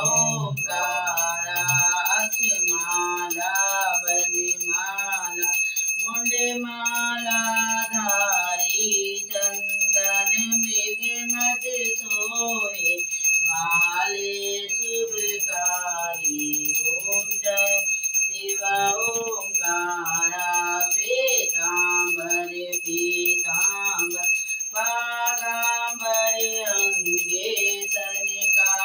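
A bell rung rapidly and without pause, its steady ringing over a voice singing a devotional aarti song.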